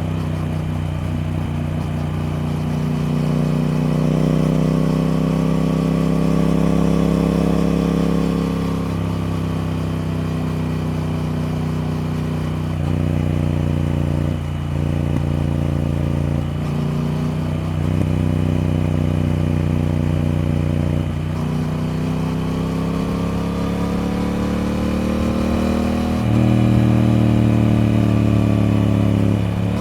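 Triumph Speed Twin parallel-twin engine running while ridden, its revs rising and falling. Several brief sharp dips in the middle sound like quick gear changes, and the revs pick up again near the end.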